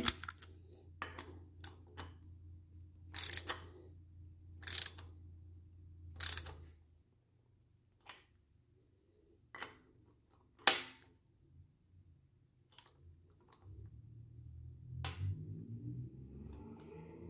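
Separate sharp metallic clicks, a dozen or so at uneven intervals, from a ratchet and socket tightening the oil pressure sending unit on a Chevy 305 small-block. A faint low hum comes in near the end.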